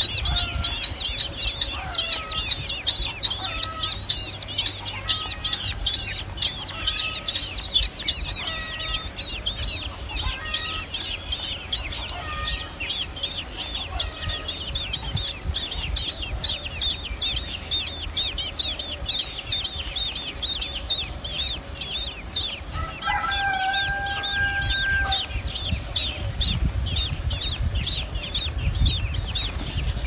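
Blackbird nestlings begging in the nest: a rapid, continuous high-pitched cheeping, loudest in the first half and fainter toward the end.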